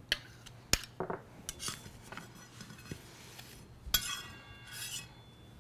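Metal icing spatula clinking and scraping against a small dish and a cake turntable: a few light clicks, then a sharper clink about four seconds in as the cake is lifted, ringing briefly.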